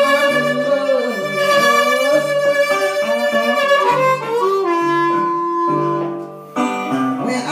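Blues harmonica played cupped in both hands, with bent and held notes over a blues backing track with bass and guitar. A long steady harmonica note in the middle ends about six seconds in.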